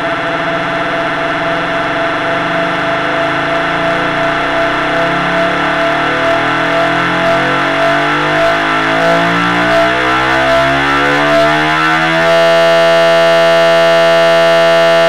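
Duck-quack and goose-honk samples from the Thirty Dollar Website sequencer, looped faster and faster, so the repeats blur into a buzzing drone that rises in pitch. About twelve seconds in it locks into a steady, harsh, continuous tone.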